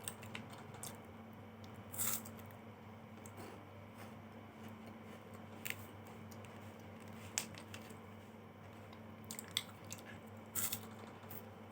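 Chewing a mouthful of Superstar chocolate bar: quiet mouth sounds with about five short crunches or smacks scattered through. A steady low hum sits underneath.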